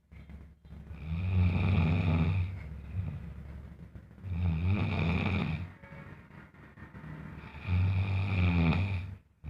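Loud snoring: three long snores, each about a second and a half, coming about three seconds apart.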